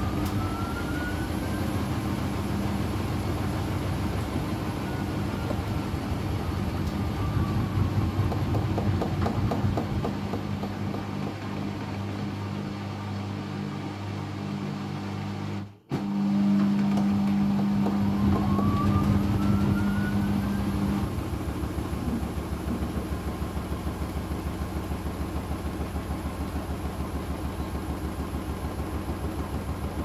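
Hoover front-loading washing machine running with water and suds in the drum: the motor whine rises as the drum speeds up, falls back, rises again about two-thirds of the way in and then drops to a fast, even pulsing. The machine keeps failing to reach spin, with a load the title calls unbalanced and over-sudsed.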